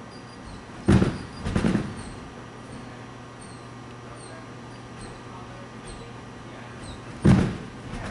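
A gymnast's feet hitting and springing off a trampoline bed: two heavy thumps about half a second apart about a second in, then another thump near the end, over a steady low hum.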